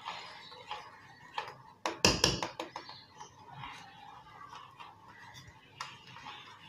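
Wire whisk stirring milk in a steel pan, its wires clinking and scraping against the pan, with a cluster of loud clicks about two seconds in.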